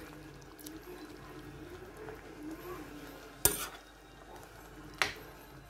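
A spoon stirring chicken and mushrooms in a bubbling cream sauce in a metal pan, with two sharp knocks of the spoon against the pan, about three and a half and five seconds in.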